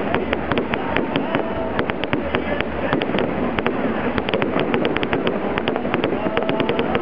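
Fireworks display going off in a rapid, continuous barrage: many sharp bangs and crackles, several a second, over a constant background din.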